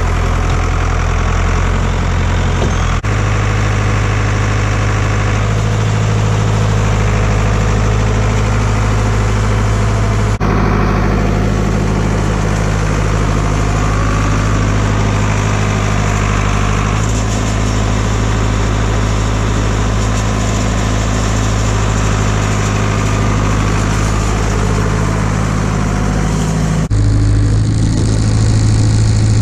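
Tractor engine running steadily at a constant speed, its pitch and level shifting abruptly a few times.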